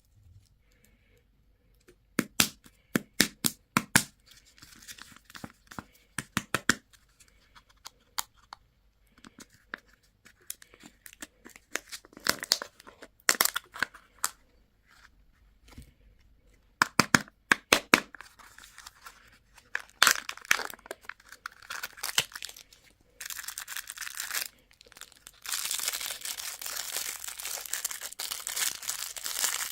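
Candy and toy packaging being unwrapped: sharp clicks and cracks of the packaging being handled and opened, then steady crinkling and tearing of wrappers near the end.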